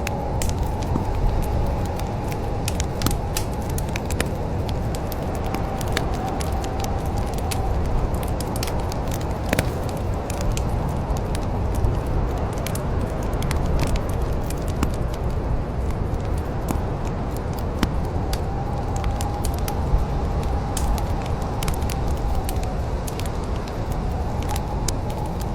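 Wood fire crackling in a fireplace: a steady low rumble of flames with frequent sharp pops and snaps, and a faint wavering whistle that comes and goes.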